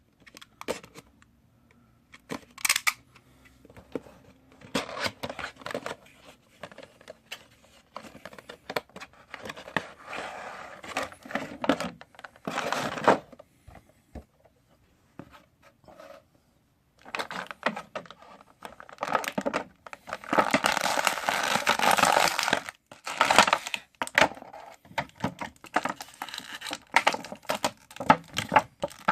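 An action figure's cardboard window box and plastic tray being opened by hand: irregular tearing, rustling and crinkling of packaging with small clicks and pauses, and a longer stretch of rustling and tearing about twenty seconds in.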